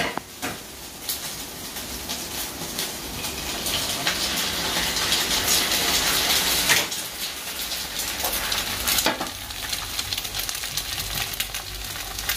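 Chopped pork and chicken sisig sizzling as it fries in pans on a gas stove: a steady frying hiss, with a few sharp clicks.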